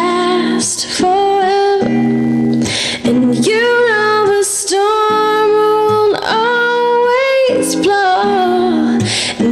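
A recorded song: a woman singing long, held notes over a soft instrumental accompaniment.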